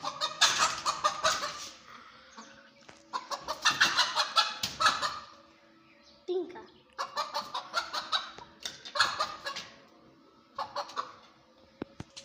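Domestic hens clucking and cackling in about four bouts of rapid calls with short quiet gaps between, alarmed at a child trying to catch them.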